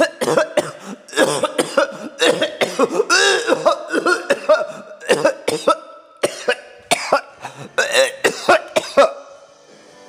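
A person coughing over and over, a long fit of short hacking coughs, many with voice in them, stopping about nine seconds in.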